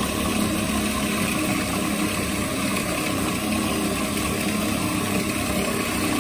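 Electric food processor motor running steadily, its blade churning beef mince with green coriander, chillies, onion and spices.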